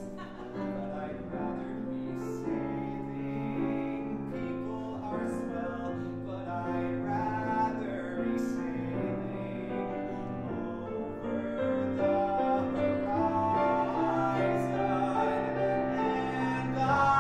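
Grand piano playing the accompaniment to a musical-theatre song, with a male singer's voice carrying the melody over it in places, most strongly near the end.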